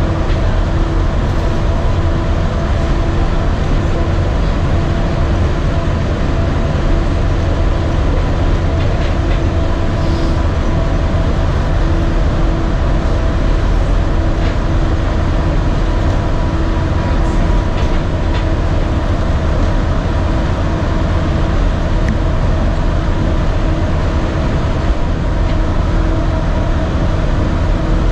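Walt Disney World Mark VI monorail running along its concrete beamway, heard inside the passenger car. A steady low rumble with a constant hum of a few steady tones, unchanging throughout.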